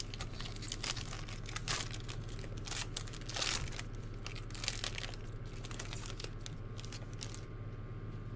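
Crinkling and tearing of a trading-card pack's wrapper being handled and torn open, in short irregular crackles.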